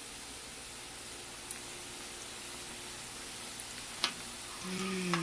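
Dough breadsticks frying in hot oil in a pan, a steady sizzle of bubbling oil. A sharp click about four seconds in.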